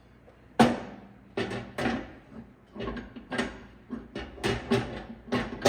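Microwave turntable tray being fitted onto its support inside the oven cavity: an irregular run of sharp knocks and clinks, the loudest about half a second in.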